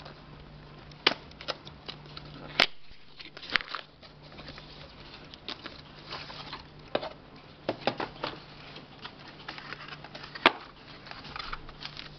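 Hands opening a small cardboard retail box: the card rustles and scrapes, with a string of sharp snaps and taps as the flaps and tabs are pulled free and folded back.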